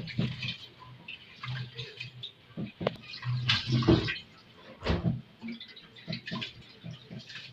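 Water pouring and splashing in a pot as boiled spaghetti is rinsed with cold water, in irregular sloshes.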